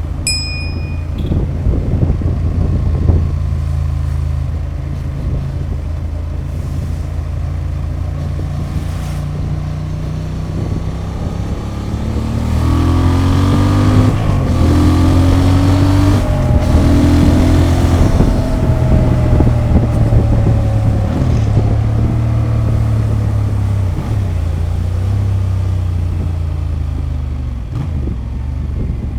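Honda XL750 Transalp's 755 cc parallel-twin engine running through its stock exhaust. Partway through, the engine note rises and gets louder for several seconds, then eases back down.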